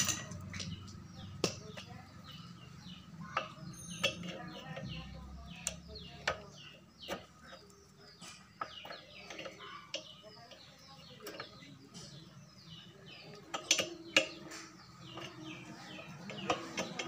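Small birds chirping over and over, with scattered sharp clicks and taps.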